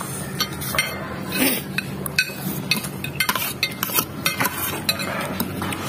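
A fork clicking and scraping against a plate while scooping up the last of the noodles, in many short irregular clicks.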